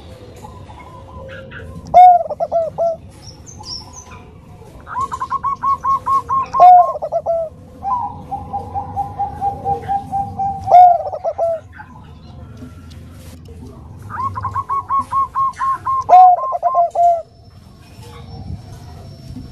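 Zebra dove (perkutut) cooing: four phrases, each a rapid run of short staccato coo notes ending in a few louder, lower notes.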